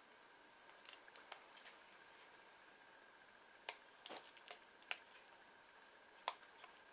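Faint, sharp ticks and clicks of a craft knife blade cutting shapes out of a thin plastic sheet on a cutting mat, about a dozen in uneven clusters, over a faint steady high-pitched hum.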